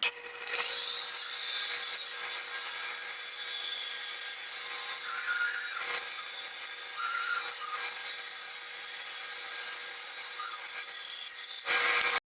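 Wood being sanded on the Shop Fox W1848 drill press's spindle sander: a steady hiss of abrasive against wood over a steady motor hum, cutting off abruptly near the end.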